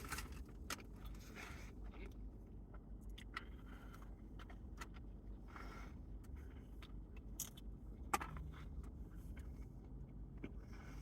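Faint eating sounds: soft chewing clicks and rustles of fast-food wrapping, with one sharper click about eight seconds in, over a low steady rumble inside a car.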